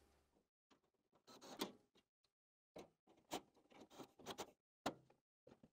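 Faint, scattered clicks and knocks of a cordless drill and screws being handled against a sheet-metal unit-heater nozzle frame while the sides are fastened down.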